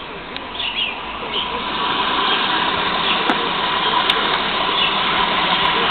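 Mueller Plus washing machine filling with water, a steady rush of water that swells up about two seconds in and then holds, with faint bird chirps in the first moments.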